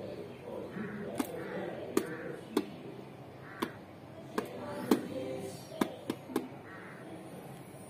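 Crows cawing in short harsh calls about once a second, with about nine sharp clicks scattered irregularly among them; the clicks are the loudest sounds.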